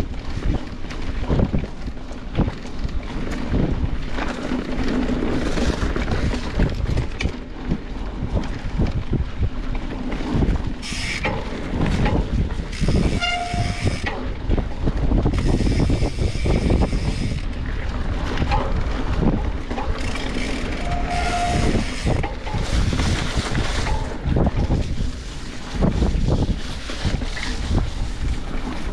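Mountain bike ridden over a rough trail: a steady rumble of tyres and wind on the microphone, broken by frequent irregular knocks and rattles of the bike over bumps. Two brief squeaks, about halfway and two-thirds of the way through.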